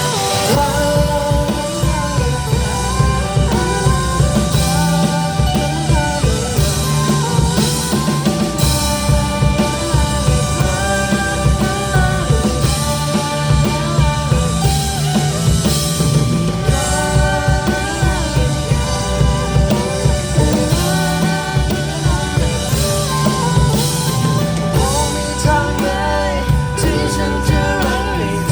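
Live rock band playing a song: a drum kit keeping a steady beat under bass and a melodic lead line.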